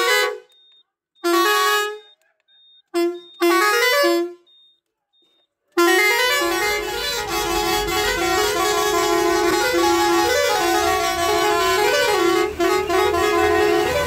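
Roots six-pipe air pressure horn on a truck, switched through its tune selector: a few short separate blasts in the first four seconds, then after a short pause it plays a continuous multi-note tune, with a low rumble underneath.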